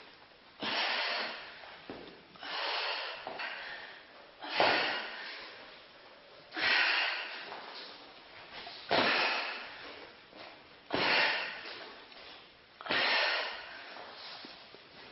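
A woman breathing hard through a bodyweight workout: a sharp, noisy breath about every two seconds, each fading out before the next.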